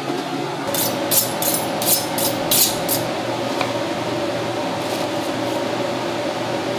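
Steady kitchen background hum, with a run of short rustling bursts in the first few seconds, then a few faint knife taps as a knife cuts an onion on a plastic cutting board.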